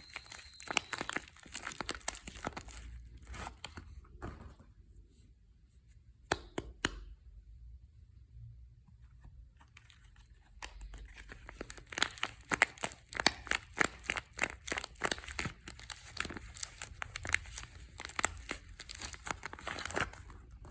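Soap packaging being torn open and crinkled by hand: dense runs of sharp crackles and rustling, with a quieter pause in the middle broken by a couple of single crackles.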